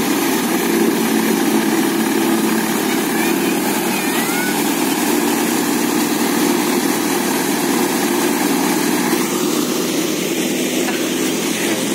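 Tractor-powered Leader wheat thresher running steadily under load, threshing wheat. The tractor engine and the spinning thresher drum and blower make one loud, unbroken drone.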